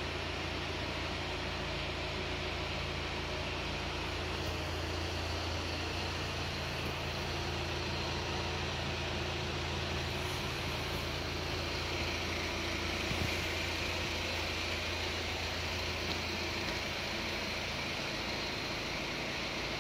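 BMW 1800 Touring's four-cylinder engine idling steadily, a low even hum whose deepest part thins out near the end.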